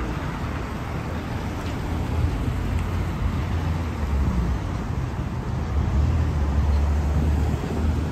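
Street traffic: cars driving past on a wet road, with a steady tyre hiss and a low rumble that grows louder in the second half.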